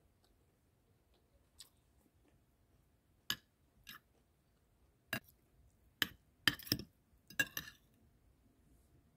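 Metal spoon and fork clinking and scraping against a ceramic plate of food: scattered sharp clinks, a few in the first half and a quick cluster of them in the second half.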